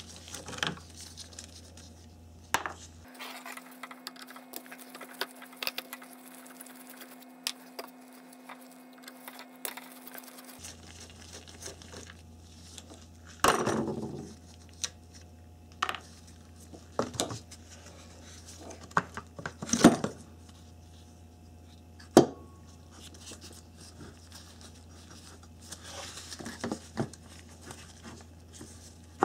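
Scattered clicks, scrapes and clunks of a screwdriver backing out the mounting screws of a car radiator cooling fan motor and of the metal motor being lifted off its plastic fan shroud, with a few sharper knocks in the middle.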